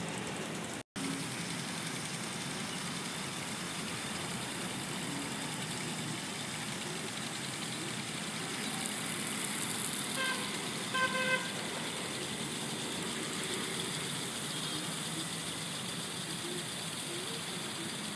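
Steady hum of city traffic with two short horn toots about a second apart, a little past the middle. A high hiss swells for a few seconds around them, and the sound drops out for an instant about a second in.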